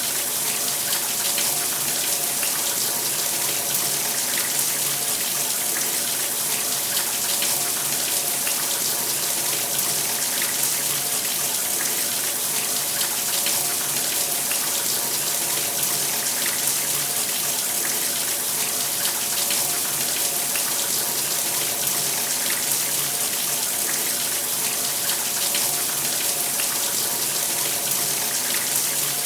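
Shower running steadily, water spraying and splashing down in an even hiss.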